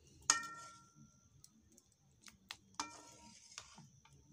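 A metal ladle clinking against an aluminium cooking pot a few times, the two loudest strikes ringing briefly, one just after the start and one a little before three seconds in.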